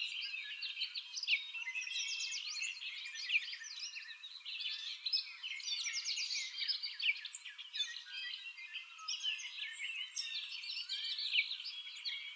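A dense, steady chorus of many small animals calling at once: short, high chirps and calls overlapping continuously, with no single voice standing out.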